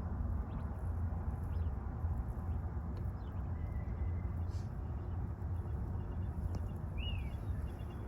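Outdoor background noise, a steady low rumble, with a few faint bird chirps and one clearer chirp about seven seconds in.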